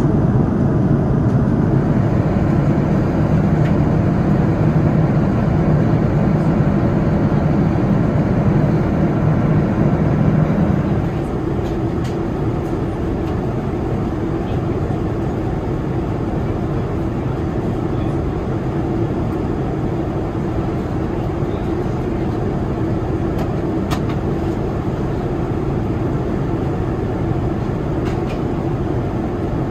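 Steady in-flight cabin noise of a Boeing 787-9 airliner at cruise: a constant rush of airflow and engine drone. It drops somewhat in level and loses some low rumble about eleven seconds in, leaving a steadier, lighter hum.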